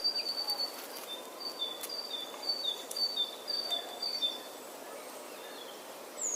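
Faint, bird-like high chirps alternating between two pitches about twice a second over a soft hiss. The chirps stop after about four seconds, and a couple of falling chirps come near the end.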